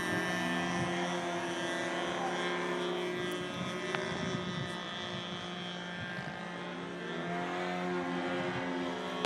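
Radio-controlled Gee Bee model airplane's engine and propeller droning in flight, the pitch dipping and rising again in the last few seconds as it manoeuvres.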